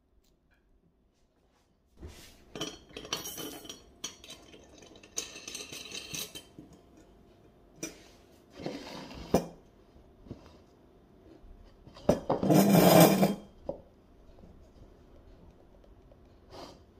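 Stainless steel rat drain guard being handled on a wooden table: scattered metal clinks, scrapes and rattles as its top nut and bolt are worked and its toothed flaps jangle, starting about two seconds in. The loudest is a longer rattle of about a second, roughly twelve seconds in.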